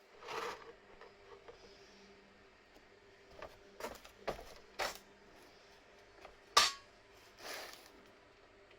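Scattered clicks and clinks of small hard objects being handled, the sharpest about six and a half seconds in, with two short rustling noises near the start and near the end.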